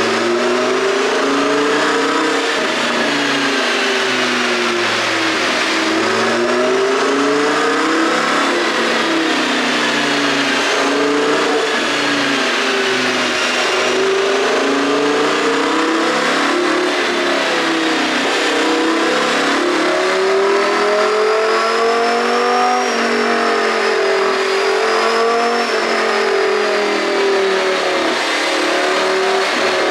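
Audi R8's 5.2-litre V10 engine running on an aftermarket ECU tune. Its pitch rises and falls slowly, again and again, every few seconds.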